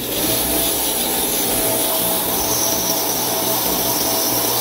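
Kärcher K3 Follow Me electric pressure washer running at its hard, full-power setting: a steady motor whine under the hiss of the water jet spraying a car tyre and alloy wheel.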